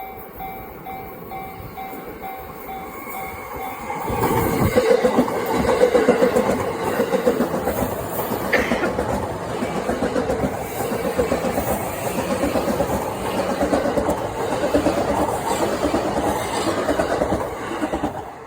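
Japanese level-crossing warning bell dinging steadily about twice a second. About four seconds in, a JR Yamanote Line electric train passes over the crossing, its wheels clattering over the rails with a brief squeal partway through, until the train noise drops away near the end.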